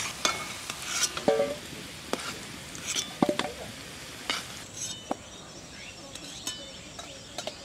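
Kohlrabi chunks sizzling in hot mustard oil in a metal karai, with a metal spoon clicking and scraping against the pan and a steel bowl as the fried pieces are lifted out. The sizzle is steady, with repeated sharp clicks of metal on metal.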